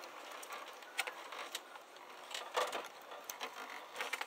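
An Allen key turning the small locking screw up into a free-float handguard on an AR-15 upper, giving a few faint, irregular metal clicks and taps. The loudest tap comes a little past the middle.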